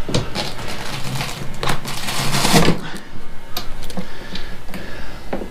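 Metal bracket and bolt hardware being handled and fitted by hand: irregular clicks, clinks and scraping, busiest in the first three seconds.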